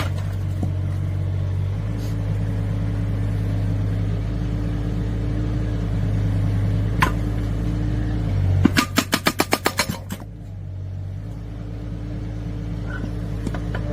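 Mini excavator's diesel engine running steadily. About nine seconds in, its hydraulic breaker hammers in a quick burst of about ten blows, roughly seven a second, lasting about a second and a half.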